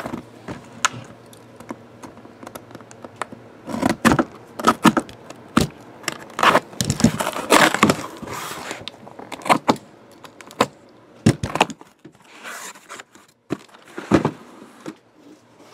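A cardboard shipping case being opened and handled: irregular crinkles, scrapes and sharp knocks, busiest from about four to nine seconds in, with a few more later.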